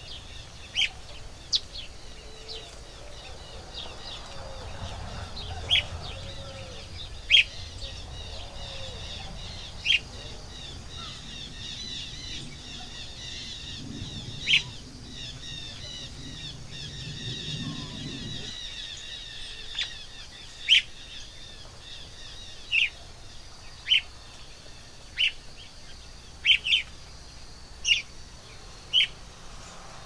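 Wild songbirds calling: loud, sharp single call notes every second or two, irregularly spaced, over a steady background twittering of many birds. A low rumble underneath stops abruptly about two-thirds of the way through.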